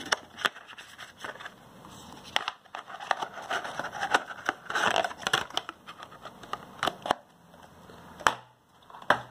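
Hard plastic SSD packaging tray and clear plastic shell being handled and pried open by hand: an irregular run of plastic scraping and crackling with several sharp clicks.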